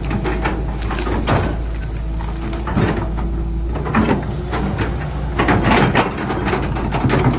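Excavator engine running with a steady low rumble, with irregular metallic clanks and knocks from the machine working.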